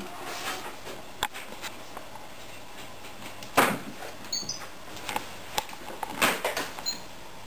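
Intermittent rustles and light knocks of a carrier bag as a cat pokes its nose against it, with a sharper rustle about three and a half seconds in and another cluster near the end, and a faint brief high chirp just after four seconds.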